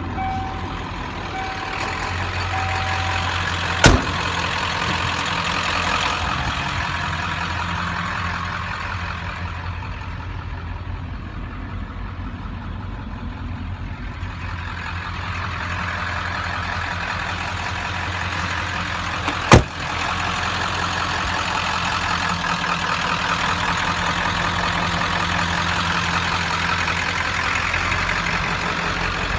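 1996 Ford F-350's 7.3 Powerstroke turbo-diesel V8 idling steadily, with two sharp knocks, one about four seconds in and one about twenty seconds in.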